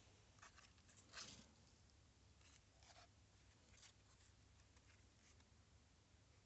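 Near silence with a few faint scratchy rustles, the clearest about a second in: hands gripping and turning a chunk of dry rotten wood, skin rubbing its crumbly surface. A low steady hum underneath.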